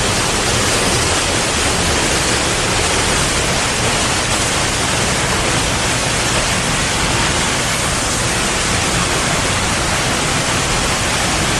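South Falls waterfall roaring at close range: a loud, unbroken rush of falling water.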